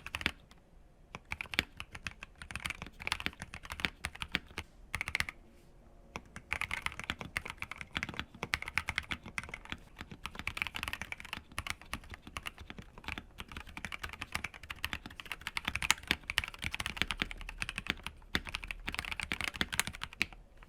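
Typing on a mechanical keyboard with GMK ABS keycaps over factory-lubed C3 Tangerine linear switches: a fast, steady run of keystrokes, with short pauses about a second in and again around five to six seconds in.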